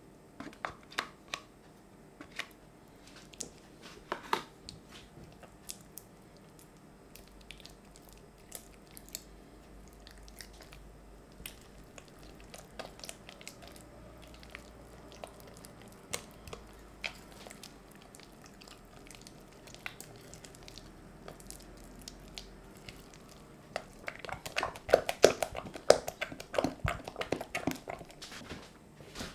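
Silicone spatula stirring soft cheese into cream in a glass bowl: scattered wet taps and scrapes against the glass, becoming quicker and louder near the end.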